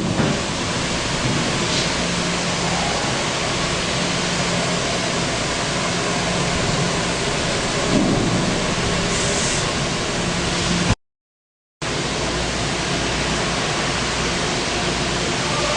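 Industrial plastic-crate washing machine running: a steady rush of water spray with a low steady hum, briefly cutting out about eleven seconds in.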